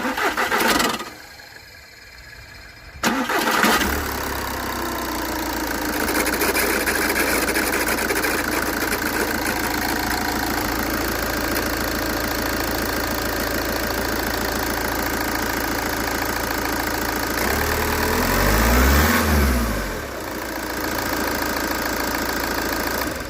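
Volkswagen 2.0 TDI four-cylinder turbodiesel engine starting about three seconds in, after a brief loud sound at the very start, then idling steadily with a scratchy, grinding noise. It is revved once, briefly, near the end, before settling back to idle.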